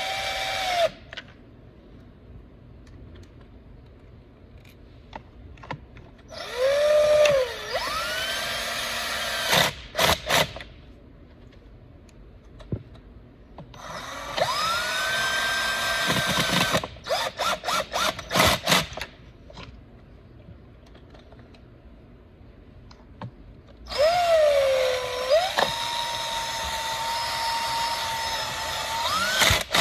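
Cordless drill/driver running in short runs to drive the screws that hold the recoil starter housing on a Stihl FS 240 trimmer. Each time the motor's whine dips, rises and then holds steady, and the middle two runs end in a quick string of short bursts as a screw is snugged down. One run ends about a second in, and the last starts about 24 seconds in.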